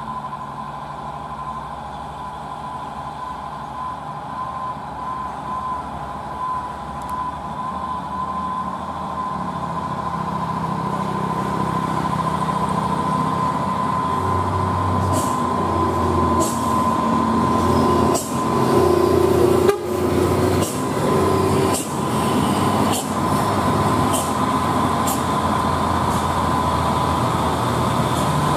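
Diesel engine of an old cab-over box truck running as it comes up the road, growing steadily louder as it approaches. About halfway through, a series of sharp knocks and clicks starts over the engine noise.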